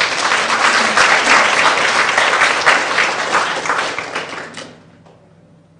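Audience applauding, a dense round of many people clapping that fades out about five seconds in.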